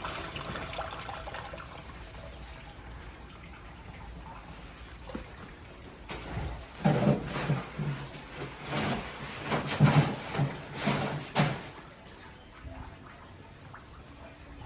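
Water running down through a large aquarium's filter plumbing, a steady trickle at first, then about halfway through several seconds of louder, irregular gurgling that settles back to a quieter flow.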